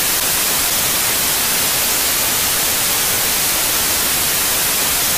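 Television static sound effect: a loud, steady hiss of white noise, strongest in the treble.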